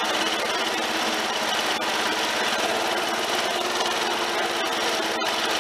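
The engine of a Snapper LT11 garden tractor running steadily as the tractor is driven along.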